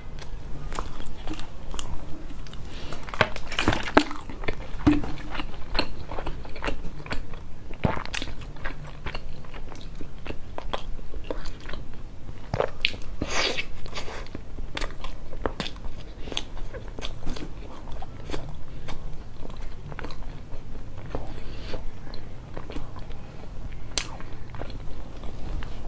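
Close-miked chewing and wet mouth clicks of a person eating a soft pink filled bun, with two louder spells of biting, a few seconds in and again near the middle.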